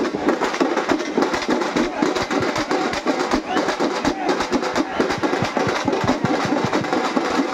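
Group of drummers on shoulder-slung hand drums playing a fast, dense, unbroken rhythm, with crowd voices underneath.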